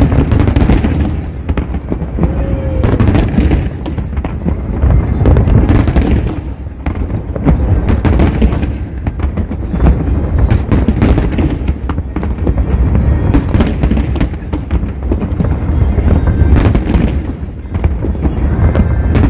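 Fireworks display: a dense, continuous run of bangs and deep booms, many shells going off every second, with music playing along.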